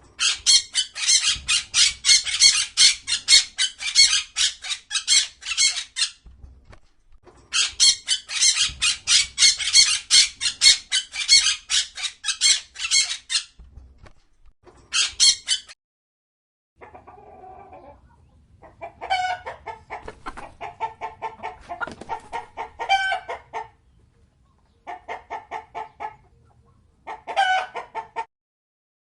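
Chickens clucking in rapid runs of short notes. The first half is higher-pitched and breaks off twice; from about two-thirds of the way in the notes are lower.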